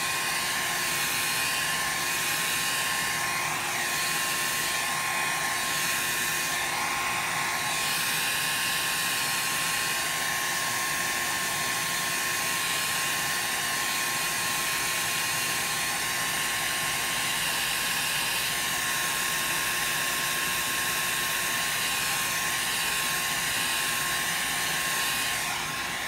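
Handheld electric hot-air dryer running steadily with a rush of air and a thin, steady whine, held close over wet ink on synthetic paper to blow and dry it. It cuts off near the end.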